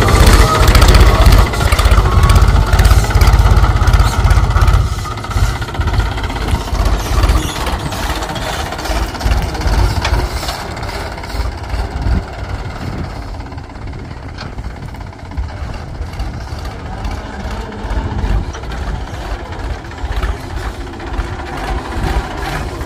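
Mahindra B-275 DI tractor's three-cylinder diesel engine running steadily, with a deep rumble; loud and close for the first five seconds, then noticeably quieter.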